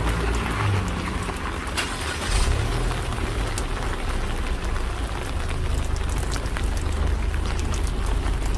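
Steady rain with many sharp drop ticks, over a continuous low rumble.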